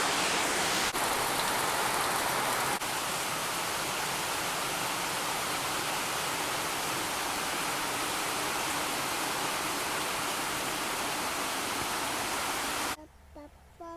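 Heavy rain falling steadily as a dense, even hiss. It cuts off abruptly about a second before the end, giving way to a quiet room.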